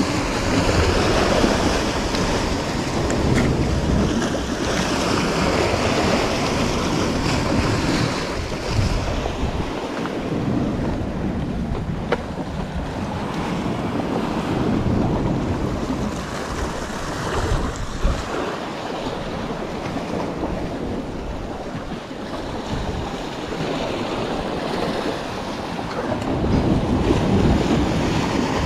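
Sea surf washing and breaking against the rocks below, swelling and easing, with wind buffeting the microphone.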